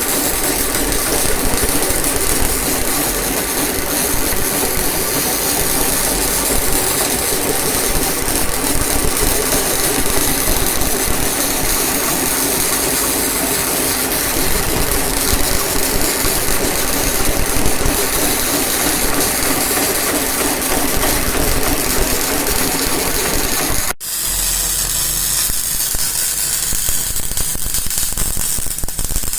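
Steady, dense crackle of a MIG welding arc, as from a bore welder laying weld inside a worn bore. At an abrupt cut about 24 seconds in, the crackle becomes quieter and thinner.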